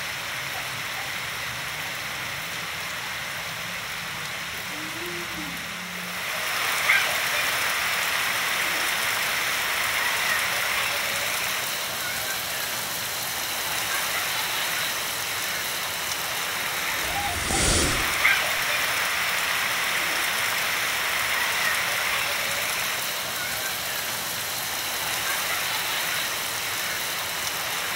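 Heavy rain falling steadily, a dense hiss with scattered drip ticks that grows louder about six seconds in. A brief, louder burst with a low end comes a little past the middle.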